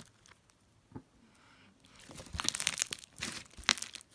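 Crunchy slime filled with foam beads being squeezed and kneaded by hand: a single pop about a second in, then a dense run of crackling pops from about halfway through.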